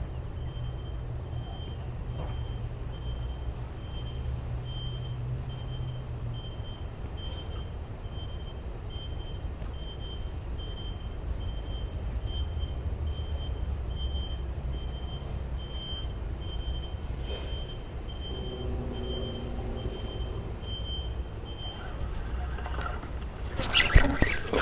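Steady low rumble of distant road traffic, with a faint high-pitched beep repeating about one and a half times a second, like a reversing alarm, that stops about two seconds before the end. Near the end come a few louder clattering knocks.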